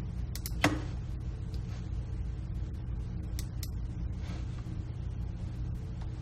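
Steady low electrical hum with a few sharp computer mouse clicks; the loudest click comes just under a second in, and two more come about three and a half seconds in.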